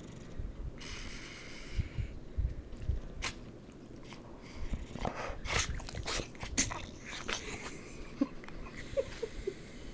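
Bulldog snoring in its sleep: irregular noisy breaths, with a run of short clicks about five to seven seconds in.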